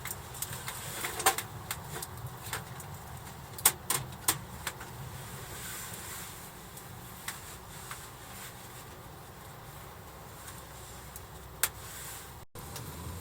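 Scattered sharp clicks and knocks, the loudest around a second in and again about four seconds in, over a low steady rumble.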